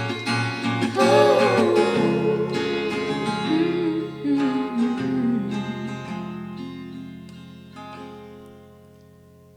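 Background pop song with acoustic guitar, fading out over the last few seconds.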